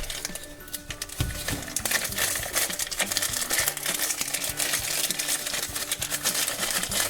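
Light background music with short, stepping notes, over frequent small clicks and rustles of plastic toy packaging being handled and opened.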